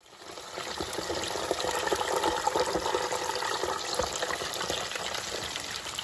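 Hot oil sizzling and crackling steadily as a basket of lumpia (egg rolls) deep-fries in a Presto Kitchen Kettle multicooker, coming up within the first half second.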